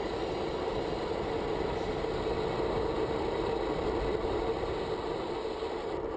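Steady wind rumble and tyre noise on the road from a road bike, picked up by a handlebar-mounted camera while riding.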